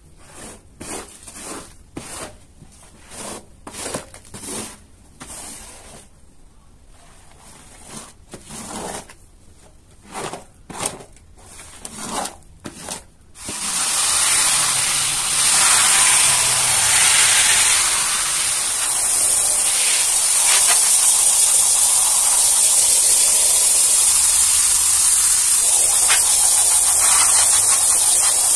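Rubber squeegee dragged across a wet rug in repeated strokes, about one a second, pulling the water out. About halfway through, a loud, steady hiss of foam being sprayed onto the rug takes over.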